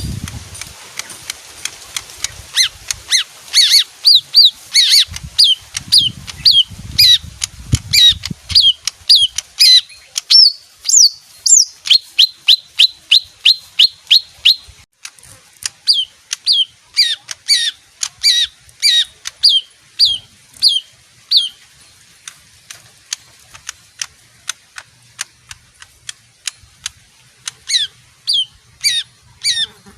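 A pet leafbird singing long runs of short, sharp, repeated high notes, several a second, breaking off briefly about halfway and again near the end. Some low thumps sound under the first part.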